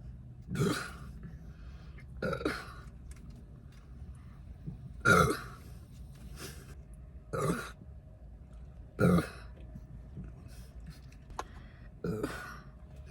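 A girl burps repeatedly, bloated from drinking carbonated Sprite. There are about seven short belches every one to three seconds, the loudest about five seconds in.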